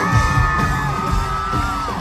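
Live rock band playing with a steady drum beat, heard from within the audience. High voices are held in long notes over the music and glide at their ends, alongside whoops from the crowd.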